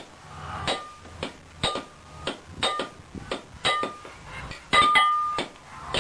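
Blacksmith's hammer striking metal on an anvil in a steady rhythm, about two blows a second, each with a short metallic ring; the blows near the end are louder and ring longer.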